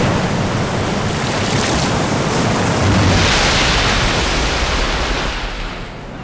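Humpback whales lunge-feeding through the surface: heavy rushing and splashing water, swelling about three seconds in and fading away near the end.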